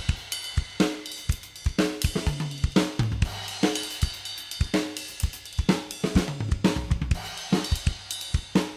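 Drum kit being played in a busy groove: kick drum, snare, hi-hat and cymbals, several strikes a second, with low pitched drum notes in among them.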